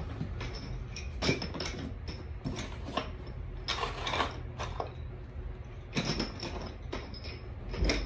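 Plastic electrical switch and socket units clicking and clattering against each other as they are picked up and packed by hand into a cardboard box, in irregular rattles over a steady low hum.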